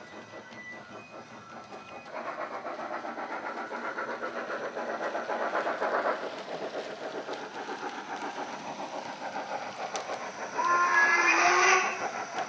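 Recorded steam locomotive sound from a Wheeltappers DCC sound decoder, played through a speaker in the tender of a Hornby City of Edinburgh model. It gives fast, even exhaust chuffs that get louder about two seconds in. About ten and a half seconds in a whistle blows for about a second, the loudest sound.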